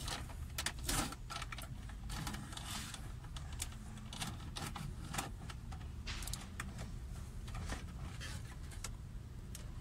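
Scattered clicks, knocks and scraping rattles as a car stereo head unit's metal casing is pulled and slid out of its slot in the plastic dashboard, the loudest knock about a second in, over a low steady hum.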